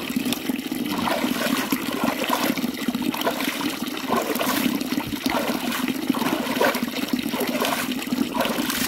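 Water rushing and splashing steadily.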